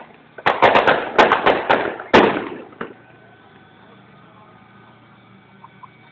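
A rapid string of firecrackers going off: about ten sharp bangs packed into two seconds, with a last pop just before the three-second mark.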